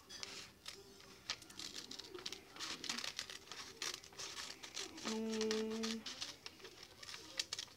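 Scissors snipping through a spiral-notebook paper sheet, with the paper rustling and crinkling as it is cut: a run of short, crisp snips. About five seconds in, a steady pitched tone holds for about a second.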